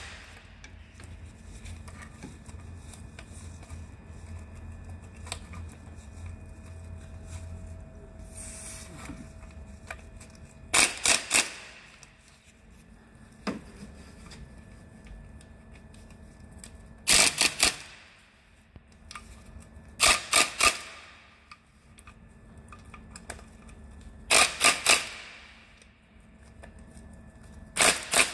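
A hand wrench clicking in five short bursts of three or four sharp clicks, a few seconds apart, with a lone click between the first two bursts, as the bolts of an engine's sump pan are tightened.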